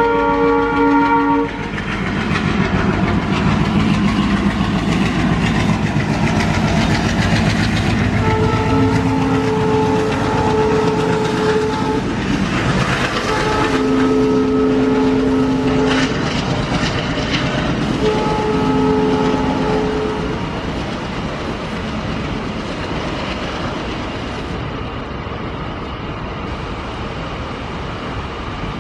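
Diesel locomotive passing with a container train, its horn sounding a chord that stops about a second and a half in, then three more long blasts in the middle. Under the horn is the engine's rumble and the clatter of wheels on the rails, easing off near the end.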